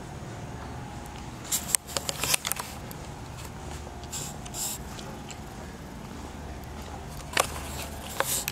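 Steady low hum of a large workshop, with scattered sharp clicks and taps: a quick cluster about one and a half to two and a half seconds in, and a few more near the end.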